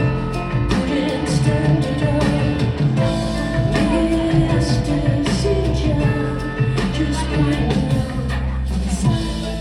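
Live band music: a keyboard-led rock song with bass and a drum kit keeping a steady beat, and a woman singing over it.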